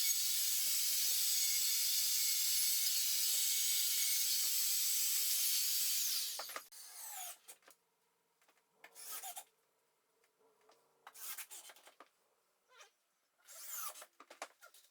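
A steady hiss with a faint high whine cuts off about six seconds in. It is followed by four short scraping strokes, work noise from drywall installation.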